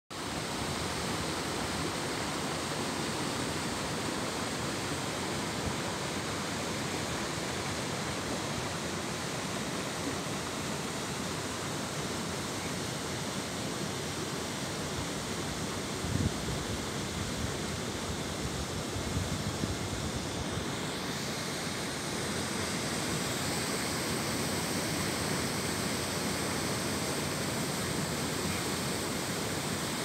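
Steady rushing of a small waterfall and stream pouring over rocks into a pool, with a brief low thump about halfway through.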